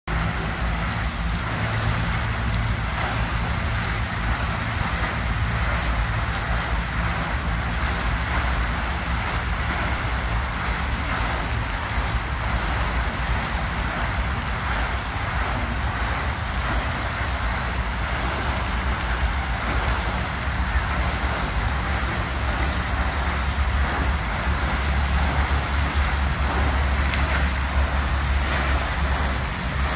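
Pond fountain jet spraying water up and splashing back onto the pond surface: a steady hiss of falling water, with a low rumble underneath that grows stronger near the end.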